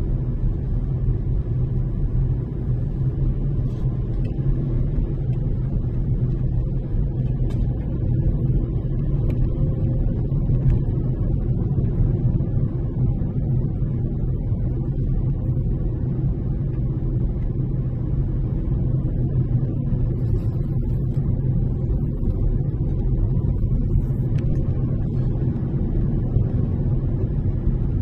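Car driving at a steady speed: a constant low engine and road rumble.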